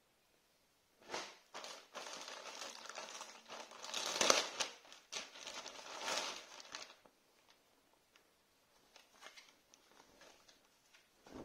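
Clear plastic packaging bag crinkling and rustling as it is handled, from about a second in until about seven seconds in, loudest near the middle, then only faint handling sounds.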